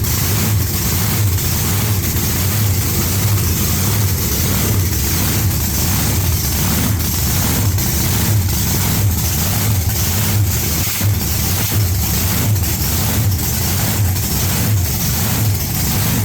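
Supercharged big-block Chevrolet V8 idling, loud and steady, with an even pulse about one and a half times a second.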